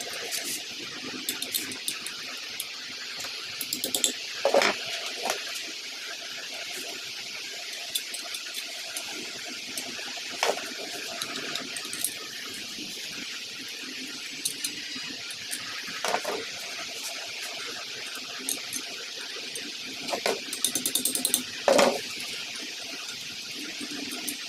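Metal bolts clicking and knocking against a steel TV wall-mount bracket as they are fitted and turned by hand: a few separate sharp clicks, then a short rattling run of clicks near the end. A steady hiss runs underneath.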